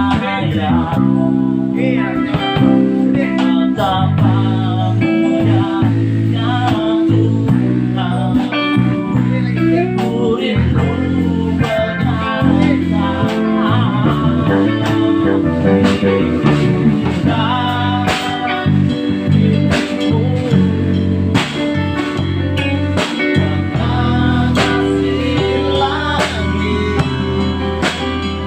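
Band music of electric bass, guitars, keyboard and drums playing steadily, a guitar carrying a melody with bending notes over regular drum hits.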